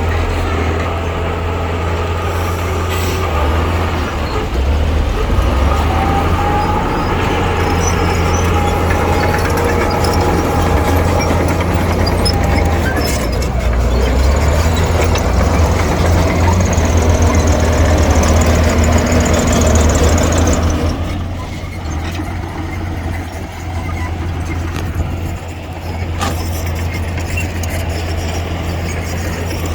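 Heavy-equipment diesel engine working under load: a loud, steady low drone with a thin squeal from about six to twelve seconds in. It eases off and drops in loudness about two-thirds of the way through.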